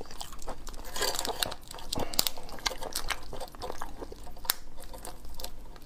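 Shell of a large raw prawn crackling and snapping as it is peeled off the tail by hand, in short irregular clicks.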